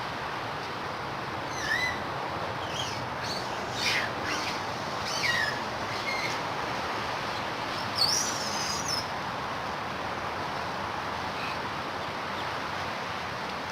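About six short, high-pitched animal calls, each a quick gliding chirp, scattered through the first two-thirds, the last and loudest wavering and rising, over a steady outdoor background hiss.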